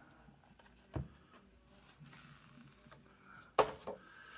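Handling of box-set packaging: a disc case slid out of its rigid card slipcase with a faint rustle, a soft knock about a second in, and a sharp clack, the loudest sound, near the end.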